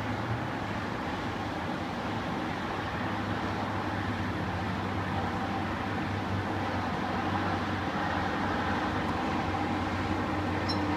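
Steady hum of distant city traffic and airport activity heard from high above, with a few low droning tones, growing a little louder in the second half.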